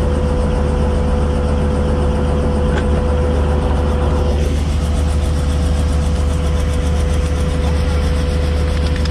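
Helicopter engine and rotor running, heard from inside the cabin: a loud, steady drone with a constant low hum and a held whine. Its higher hiss drops off a little about halfway through.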